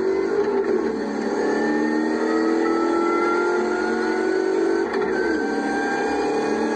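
Rover SD1's 3.5-litre V8 race engine, heard from inside the cabin, pulling hard with its pitch rising through the gear. A quick upshift about five seconds in drops the pitch, then it climbs again.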